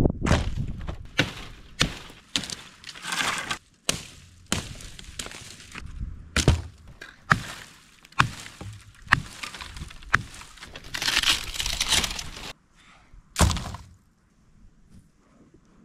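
Axe chopping into wood: a string of irregular heavy strikes, with cracking and snapping of dry branches in between. The chopping stops about two seconds before the end.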